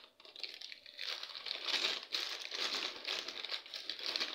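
Clear plastic bag crinkling in several bouts as a hand opens it and rummages inside among the substrate and roots of a bare-root plant.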